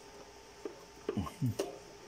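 Hands working cable connectors inside an opened SLE 5000 infant ventilator, while the flex and ribbon cables are being disconnected from its boards. About a second in there is a short cluster of scrapes and squeaks falling in pitch, ending in a sharp click, over a faint steady hum.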